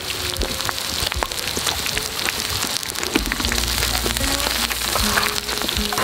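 Pork belly and ribs sizzling on a sot-ttukkeong cauldron-lid griddle over charcoal: a dense crackling hiss of spattering fat. Soft background music with a low bass comes in about halfway through.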